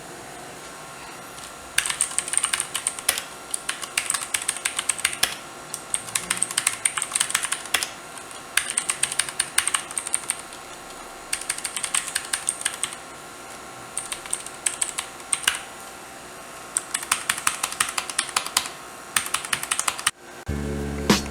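Redragon K551 mechanical keyboard being typed on: quick runs of clattering keystrokes in about seven bursts, each one to three seconds long with short pauses between.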